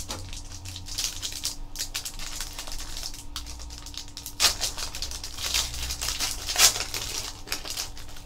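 Foil trading-card pack being torn open and crinkled by hand, with the cards slid out of the wrapper. The crinkling comes in crackly bursts, loudest about halfway through and again a little later.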